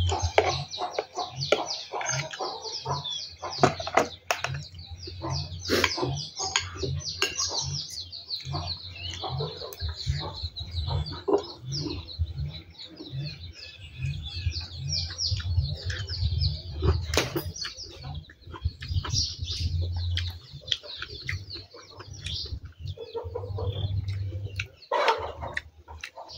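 Chickens clucking and small birds chirping throughout, over a low hum that pulses about twice a second.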